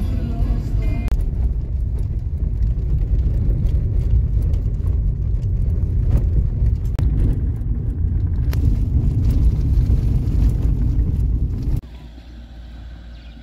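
Car driving on a dirt road, heard from inside the cabin: a loud, steady low rumble of engine and tyres with occasional sharp ticks. Near the end it cuts off suddenly to much quieter open-air ambience.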